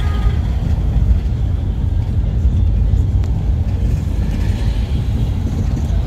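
Steady low rumble of engine and road noise inside a moving vehicle's cabin.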